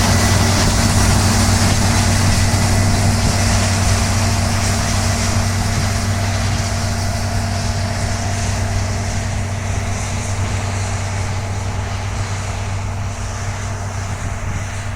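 New Holland TC5.30 combine harvester's engine and threshing machinery running with a steady low hum, gradually getting quieter.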